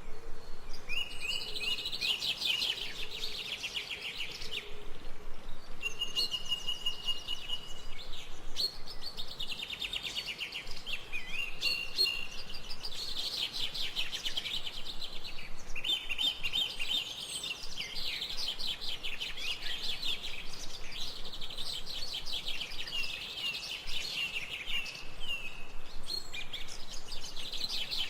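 Small songbirds singing, in rapid twittering trills and chirps made up of repeated phrases a few seconds long with short pauses between them, with one held whistled note about six seconds in.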